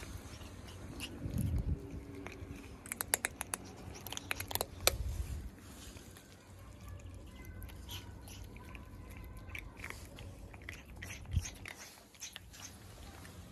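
Cats crunching dry kibble close up: a run of quick crisp crunches and clicks, thickest about three to five seconds in and again near the end.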